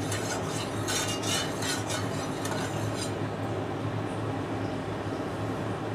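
A metal spoon or spatula scraping and clinking against a kadai with hot oil in it, a run of quick scrapes and taps in the first three seconds, over a steady low hum.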